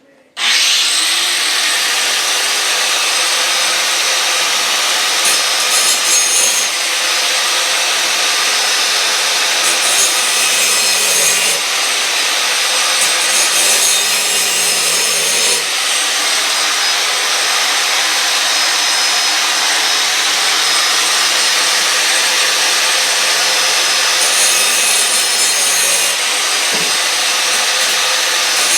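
Power grinder grinding the cutting edge of a steel finish-mower blade: quick sharpening. A loud, steady grating that starts abruptly about half a second in.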